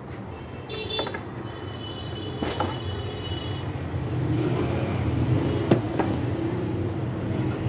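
Cotton carding machine running with a steady low mechanical hum that grows louder about halfway through. A thin high whine sounds briefly near the start, and a few sharp clicks come through, the strongest near the end.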